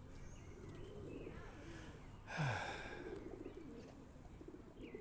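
Pigeons cooing, a low, wavering burble that goes on throughout, with a brief louder noisy burst about two seconds in.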